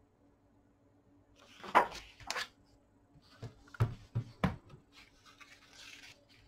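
Page of a large hardbound book being turned by hand: a paper swish about two seconds in, then a few soft knocks as the page lands and hands handle the book, and a light rustle near the end.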